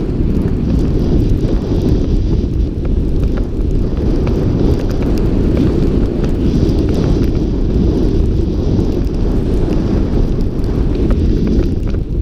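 Wind buffeting a head-mounted camera's microphone while snowboarding downhill: a loud, steady low rumble, with a fainter hiss of the board sliding over snow coming and going above it.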